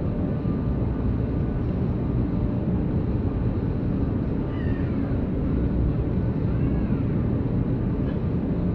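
Outdoor city street ambience: a steady low rumble, with two brief high gliding sounds around the middle.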